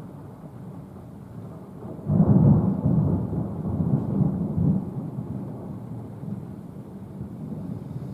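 Thunder rumbling: a low rumble that swells suddenly about two seconds in, rolls loudest for a couple of seconds with uneven peaks, then fades back to a lower rumble.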